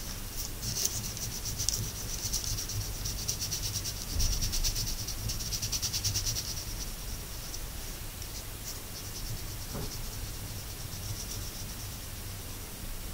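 Crayon (oil pastel) scratching on paper in rapid back-and-forth colouring strokes, busiest for the first six seconds and lighter after.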